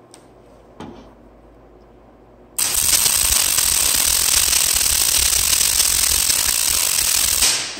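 MIG welding gun running an arc on steel: the arc strikes suddenly about two and a half seconds in and runs steadily for about five seconds before cutting off.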